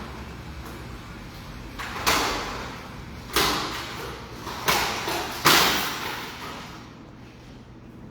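Door-lock hardware and a door clattering while old locks are taken off and new ones fitted: four sharp knocks about a second apart, each trailing off in a short rattle.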